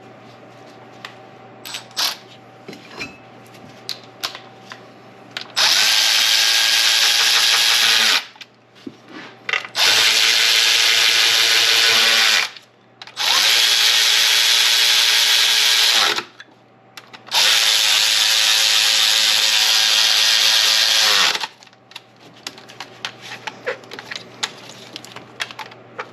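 Power drill running four times in a row, each run a few seconds long with short gaps between, driving bolts in during engine reassembly. Light clinks of parts being handled come before and after.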